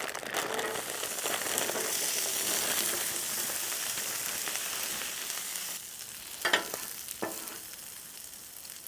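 Frozen potato crowns sizzling as they are poured onto a hot flat-top griddle into leftover bacon and sausage fat; the sizzle swells over the first few seconds, then slowly eases off. A few short sharp clicks past the middle come from a metal spatula working the tots on the griddle.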